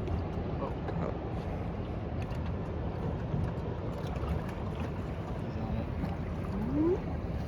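Steady rush of wind and water noise aboard a fishing boat, with one short rising call near the end.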